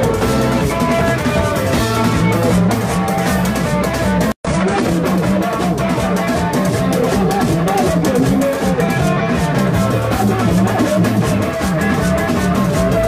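Live band music: electric guitar over drums, loud and steady, with a brief dropout in the sound about four seconds in.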